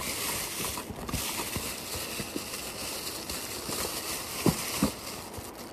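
Plastic packaging crinkling and rustling, with scattered light clicks and knocks, as a bag of vanity-mirror light bulbs is handled in a cardboard box.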